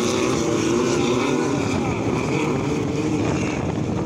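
Several 1600cc off-road race buggy engines revving together, their pitches rising and falling over one another as the buggies speed up and ease off through the corners.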